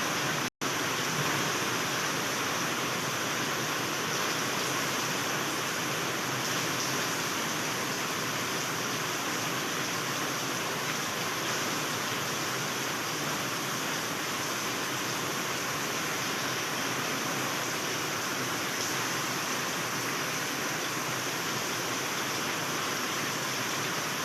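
Heavy rain pouring down steadily, an even hiss, broken only by a brief cut about half a second in.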